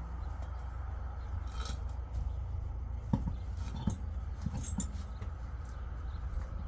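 A few light metallic clicks and knocks, from tools or wheel parts being handled, over a steady low rumble.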